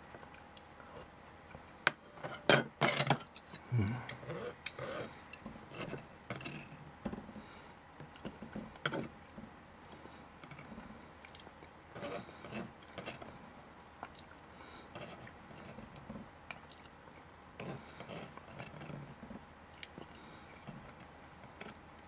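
Chopsticks scraping and tapping on a plastic cutting board, scooping up spilled sauce: scattered clicks and short scrapes, busiest and loudest about two to five seconds in, then sparser taps.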